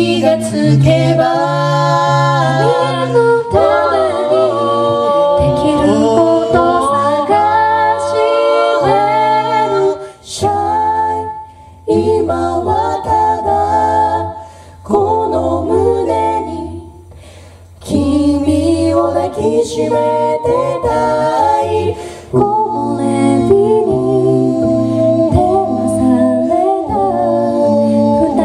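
Four-part a cappella group singing with lead, top and second voices in harmony over a sung bass line, mixed male and female voices. The sound drops away briefly a few times in the middle before the full harmony comes back.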